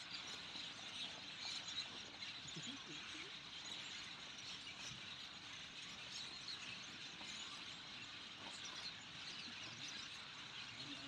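Faint outdoor ambience: a steady high hiss scattered with many tiny, faint chirps and ticks.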